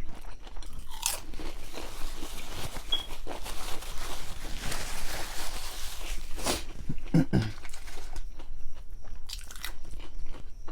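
Close-up eating sounds: crunchy bites and chewing of a toasted grinder sandwich, with repeated crackly crunches and wet mouth noises.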